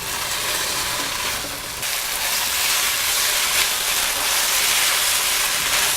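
Fried chicken pieces sizzling in a hot pan of thickened chilli-soy sauce while they are stirred, a steady frying hiss that grows a little louder about two seconds in.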